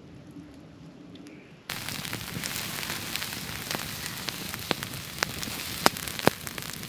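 Wood campfire crackling: a steady hiss with scattered sharp pops, a few of them loud near the end, starting suddenly about two seconds in after a quiet stretch.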